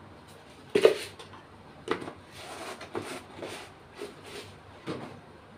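A series of knocks and clicks of a plastic kitchen container being handled at the counter: one sharp knock about a second in, then several lighter ones about a second apart.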